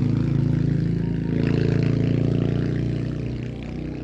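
A motor vehicle's engine running close by, a steady low drone that fades away after about three seconds.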